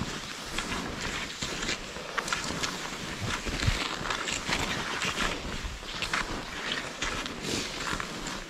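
Footsteps crunching in snow, one or two uneven crunches a second.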